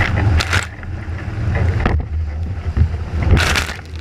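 Strong wind buffeting the microphone with a steady low rumble while a catamaran sails in 30-plus knot gusts. Two short rushes of water spray and splashing, about half a second in and near the end.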